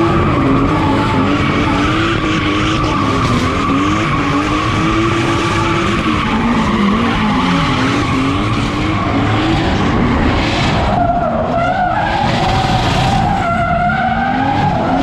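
A drift car's engine revs up and down as the throttle is worked through a drift, over steady tyre screech from the sliding, smoking rear tyres.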